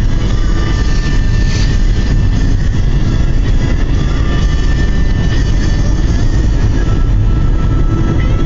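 Steady low rumble of a car driving down a road, heard from inside the cabin, with thin sustained tones over it that change pitch now and then.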